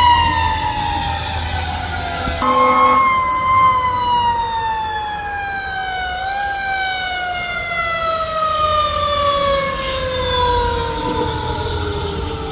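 Fire engine siren winding down in one long falling wail, its pitch briefly lifted about six seconds in. A short steady horn blast sounds about two and a half seconds in, over low engine rumble.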